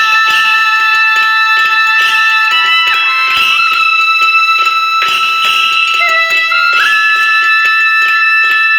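Background music: held melodic notes over quick plucked string notes.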